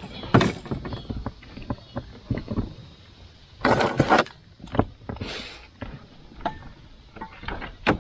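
Knocks, clunks and scrapes of gear being handled in a small plastic boat, with a longer scraping rush about halfway through.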